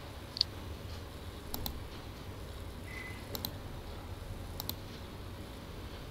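Computer mouse button clicks: three double clicks, each a quick press-and-release pair, spaced a second or so apart. A single sharper tick comes about half a second in. A low steady hum runs underneath.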